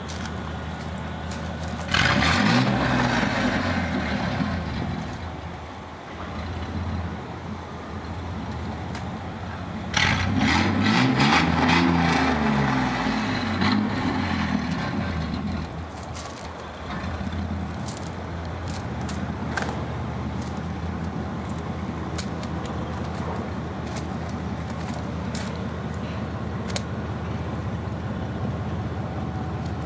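Chevrolet S10 pickup's V6 engine idling, revved twice: briefly about two seconds in, then harder and longer about ten seconds in, the pitch rising and falling back each time before it settles into a steady idle.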